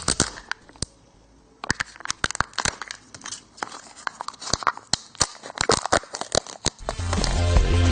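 A surprise egg's wrapper crinkling and tearing as it is unwrapped by hand: many quick, irregular crackles. Background music fades out at the start and returns near the end.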